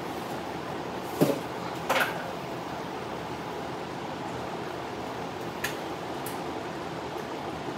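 A large drum fan running with a steady whir. There are two sharp knocks, about one and two seconds in, and a lighter click later.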